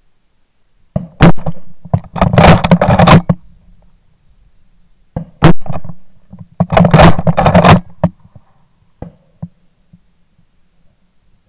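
Two sharp, very loud bangs about four seconds apart, plausibly shots from a moderated (Hushpower) .410 shotgun, each followed within a second by about a second of loud rustling and handling noise on the gun.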